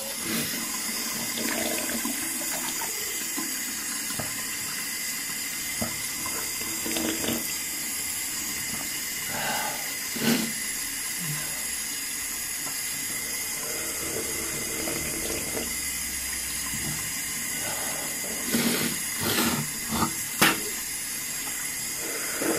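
Bathroom tap running steadily into a sink, with several short, sharp sounds of a man spitting into the basin, the loudest cluster near the end.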